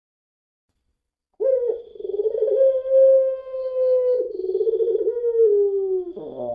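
Puter pelung dove giving one long, drawn-out coo that starts about a second and a half in, holds near one pitch, then slides lower and breaks off near the end.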